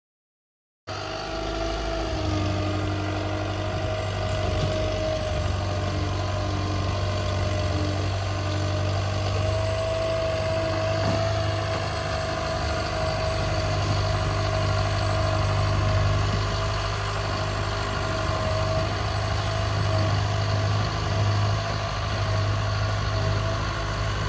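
Trail-grooming vehicle's engine running steadily at a constant speed, a deep drone with a steady whine above it, cutting in abruptly about a second in.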